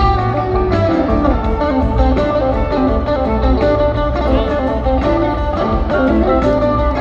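Live rock band playing, with electric guitar lines over bass and drums.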